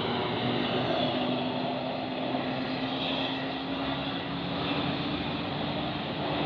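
Medium tour bus's diesel engine labouring up a steep climb: a steady drone whose pitch rises slowly, over dense road and tyre noise.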